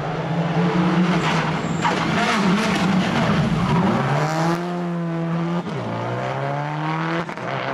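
Subaru Impreza rally car's flat-four engine at high revs while the tyres skid through a sideways slide. Then the car accelerates away, its engine pitch climbing and dropping twice at the upshifts.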